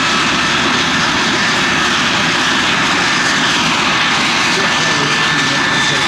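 Aircraft engine noise, loud and steady, with a thin steady high whine over it.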